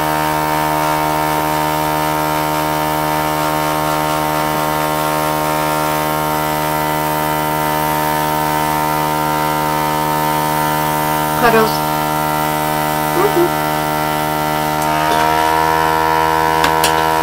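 Handheld electric hot-air blower running steadily with a motor hum, drying a freshly sprayed clear coat. The hum gets a little louder and higher about fifteen seconds in.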